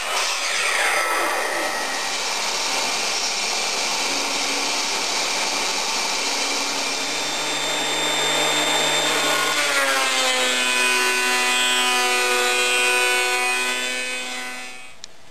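Benchtop thickness planer running with its loud, steady noise, then switched off about ten seconds in: the cutterhead whine drops and fades away over about five seconds as the machine winds down.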